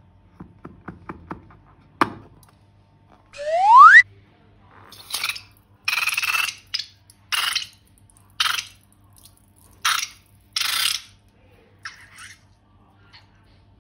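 A rising, whistle-like cartoon sound effect about three seconds in, the loudest sound, after a few light clicks. About seven short crackly, rustling bursts follow, the handling noises of crunchy slime and balloons being worked.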